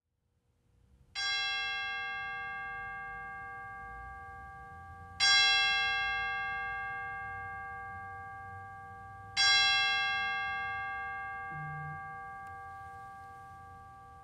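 A bell struck three times, about four seconds apart, each stroke ringing the same note and dying away slowly; the first stroke is softer than the other two.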